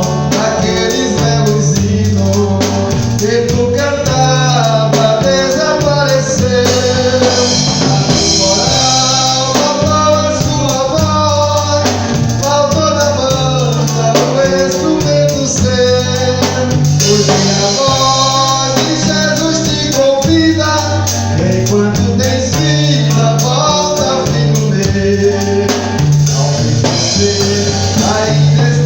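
A church vocal group singing a Portuguese gospel song, with a band accompaniment of drum kit, guitar and bass underneath.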